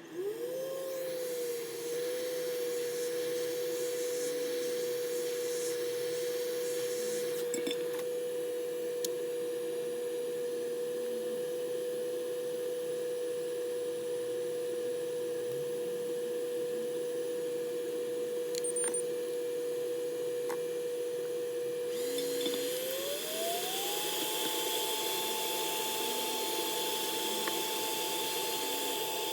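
A small electric motor on a microsoldering bench tool starts up and whines steadily at one pitch over a hiss. About 23 seconds in it glides up to a higher pitch as it is sped up, then holds there.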